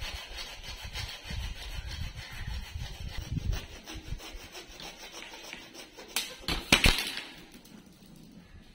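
Hacksaw blade sawing through a white uPVC pipe with repeated back-and-forth strokes, ending about six seconds in with a couple of sharp, loud knocks as the cut finishes.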